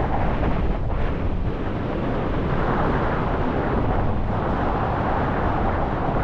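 Wind of about 15 miles an hour buffeting the microphone: a steady low rumble of wind noise that swells and eases slightly without a break.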